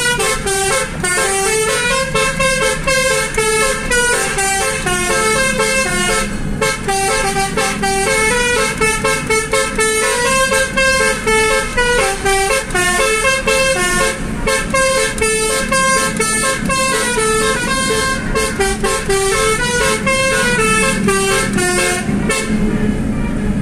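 Basuri musical air horn playing a fast melody of short horn notes with a steady beat under it, the tune hopping quickly from note to note.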